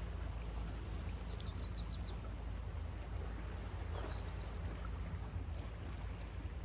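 Steady wash of sea surf on the beach, with a few faint high bird chirps about a second and a half in and again around four seconds.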